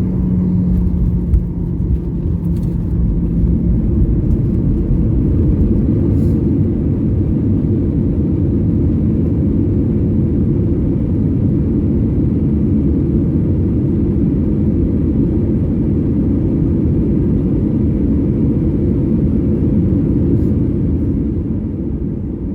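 Jet airliner cabin noise while taxiing after landing: a steady low engine rumble heard from inside the cabin, with a hum in the first few seconds and a brief click about a second in.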